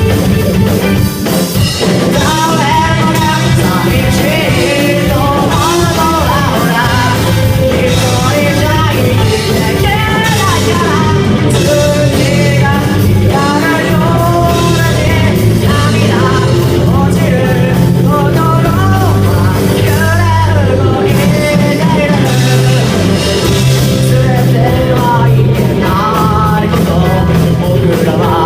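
Rock song with a lead vocal singing over a full band, loud and continuous, with steady low bass notes under the voice.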